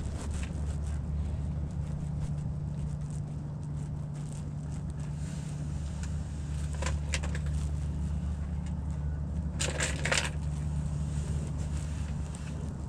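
Wind buffeting the microphone as a steady low rumble, with a few short bursts of crackling about seven and ten seconds in.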